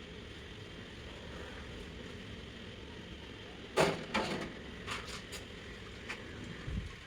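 A few knocks and clatters of hard objects being handled, the loudest about four seconds in, over a steady low background noise.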